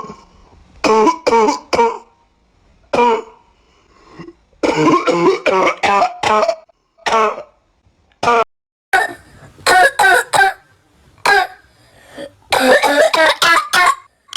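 A person coughing and clearing their throat: single coughs and short fits of several coughs in quick succession, with brief pauses between.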